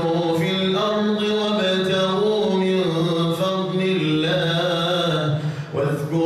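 A man's solo Quran recitation, chanted in a slow melodic style with long held, gliding notes. There is a brief pause for breath about five and a half seconds in.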